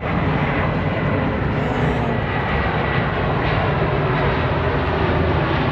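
A steady engine drone with a low hum, holding level without revving.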